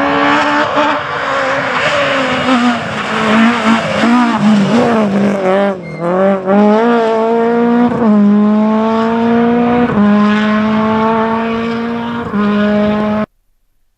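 Rally car engine at full throttle: the revs waver unevenly at first, then climb steadily through the gears, dropping back at each of three upshifts. The sound cuts off suddenly near the end.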